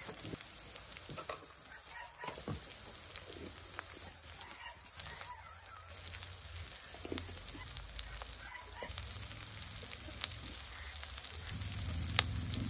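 Onions and tomatoes frying gently in a kadai, with light spoon taps on the pan as spices are added, growing louder near the end. Domestic fowl call now and then in the background.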